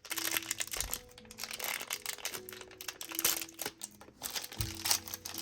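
Cardboard blind-box packaging crinkling and tearing with many small crackles as a door of the box is opened. Quiet background music with held notes plays underneath.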